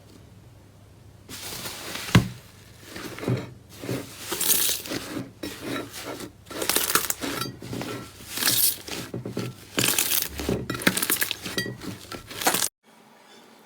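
Slime being squeezed and pressed by hand, a dense run of crackling, clicking pops with a sharp snap about two seconds in, stopping suddenly near the end.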